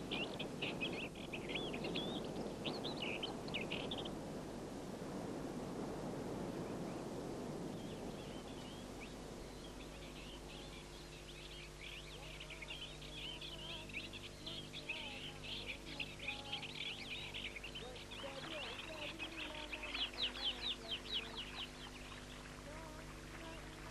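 Small birds chirping and twittering in quick runs of high notes, over a low background noise that fades out after about eight seconds.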